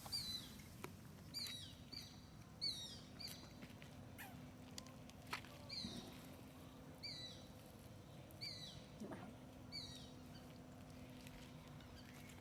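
A small animal's short, high squeaky calls, each falling in pitch, repeated about once a second and stopping near the end, with a few faint clicks between them.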